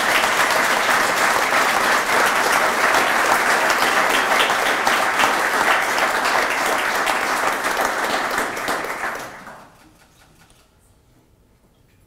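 Seated audience applauding, a steady dense patter of many hands clapping that dies away about three quarters of the way through.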